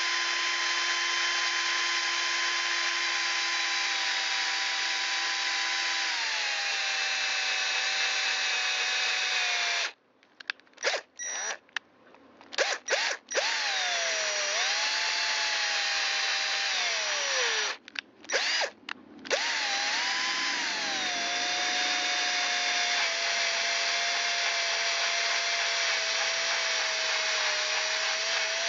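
Electric hand drill running a 3/32-inch bit into a broken allen bolt, its motor whining steadily. The motor slows in steps, stops twice with a few short trigger blips, then runs on steadily at a slower speed. This is the slow speed used so the bit cuts chips without burning its tip.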